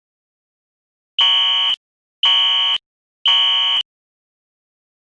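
Fire alarm sounding the temporal-three evacuation pattern: after a pause, three loud, high-pitched beeps about half a second long, one a second, about a second in. The cycle is three beeps, then a pause of about a second and a half, the standard evacuation signal.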